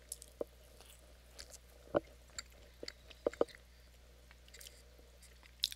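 A person chewing a bite of bread with hot sauce, close to a headset microphone: quiet, irregular mouth clicks and chewing sounds.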